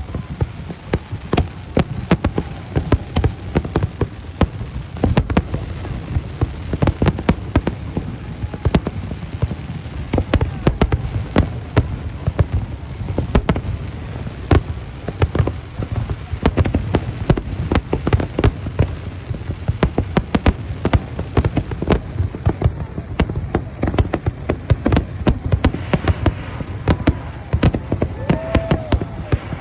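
Big fireworks display going off: a dense, continuous barrage of sharp bangs and crackles, several a second, over a low rumble. Crowd voices come through underneath near the end.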